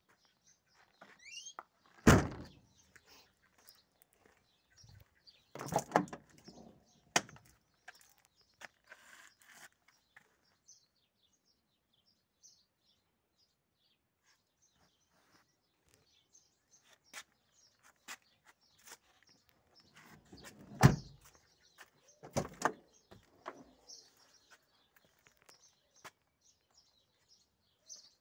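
Mercedes 190E's boot lid and doors being handled and shut: a few heavy thunks, one about two seconds in, a pair around six to seven seconds, and two more just after twenty seconds. Birds chirp faintly in between.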